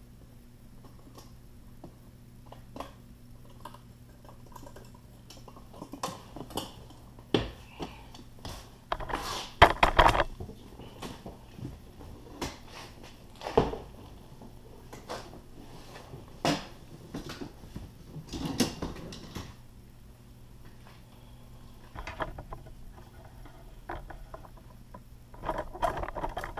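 Hand tools and small metal parts clinking, knocking and clattering irregularly as they are handled and set down, loudest in a cluster about ten seconds in, over a faint steady low hum.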